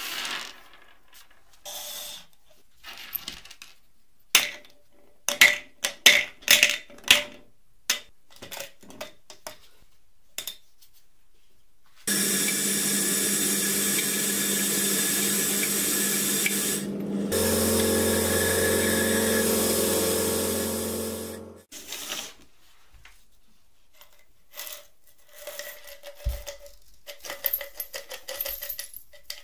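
Small metal bolts clinking and knocking as they are handled. About twelve seconds in, a sandblasting gun in a blast cabinet starts with a loud, steady hiss of air and grit, a low hum joins partway through, and it cuts off after about nine seconds. Then the blasted bolts rattle and clink as they are shaken out of a plastic bottle into a mesh sieve.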